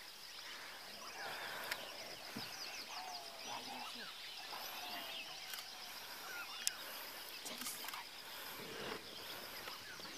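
Grassland ambience: many short bird chirps and calls over a steady high insect drone, with two sharp clicks, the louder one about two-thirds of the way through.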